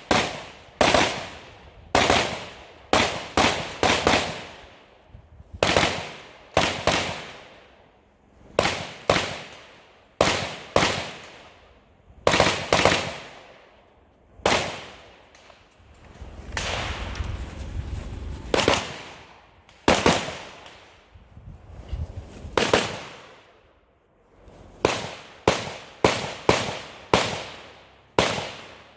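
Rifle shots fired in a competition stage: quick pairs and short strings of shots with pauses of a second or two between groups, each shot trailing off in an echo.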